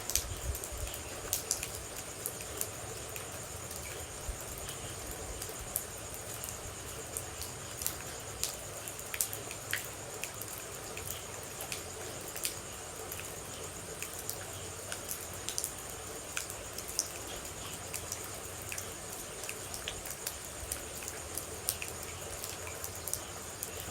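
Rain ambience: water droplets falling and pattering in irregular, scattered drips over a soft steady wash of rain, with a constant high-pitched hum in the background.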